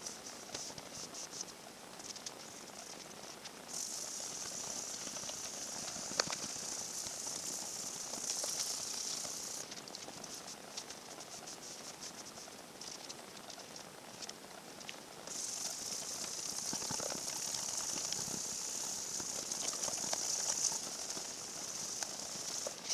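1000-grit sandpaper on a sanding block rubbed with water over a guitar body's finish to level it: a steady high hiss in two long stretches, with scattered light ticks and scrapes in between.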